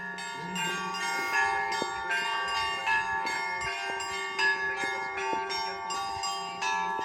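Orthodox church bells ringing a peal: several bells struck in quick, overlapping strokes, a few a second, their tones ringing on over one another.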